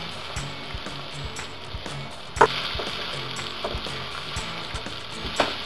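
Potatoes and onions sizzling steadily in oil in a non-stick pan as they are stirred, with a few sharp knocks against the pan, the loudest about two and a half seconds in.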